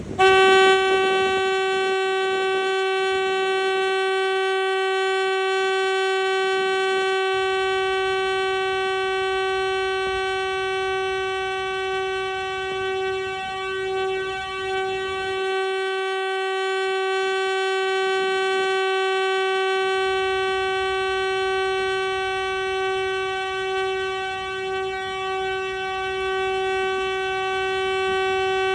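A car horn held down without a break, sounding one steady note with small wavers in loudness.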